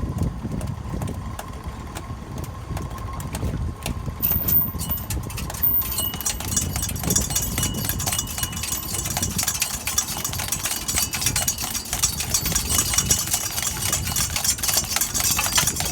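Boat engine running steadily at idle, a low rumble, with a dense high crackle joining in about six seconds in.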